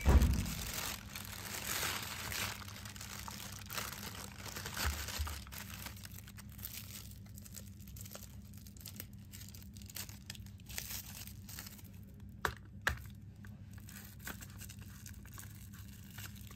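Thin plastic carrier bag rustling and crinkling as it is opened around two sealed bubble-tea cups, then quieter handling and straw-wrapper tearing as straws are pushed through the sealed lids, with two sharp clicks about three quarters of the way through. A steady low train hum runs underneath.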